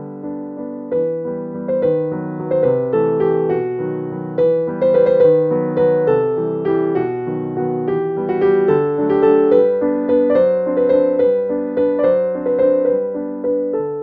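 Background piano music: a steady stream of struck notes in a gentle melody.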